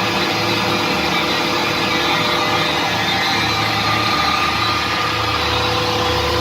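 Rice-husk grinding machine running steadily: a loud, even machine drone with a low hum and several steady tones over it.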